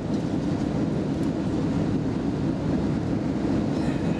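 Airbus A320 passenger cabin on final approach: a steady, even noise of the engines and rushing air, deepest in the low range, heard from a window seat inside the cabin.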